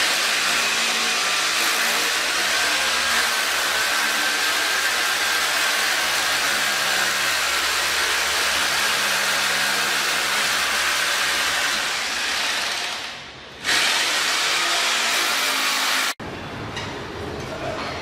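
Electric drill running steadily while drilling into a wall, with a faint steady whine. It stops briefly about thirteen seconds in, starts again, and cuts off abruptly about sixteen seconds in.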